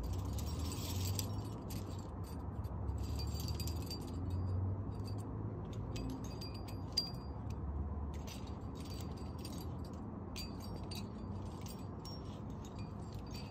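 Metal climbing hardware, carabiners and gear on harnesses and slings, jingling and clinking in short bursts, on and off, over a steady low rush.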